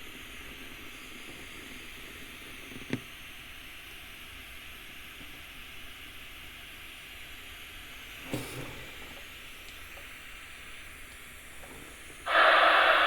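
Radio receiver hiss from a transceiver tuned to FM in the CB band, with a single click about three seconds in. About a second before the end, a much louder burst of FM static abruptly takes over: the squelch opening on open-channel noise.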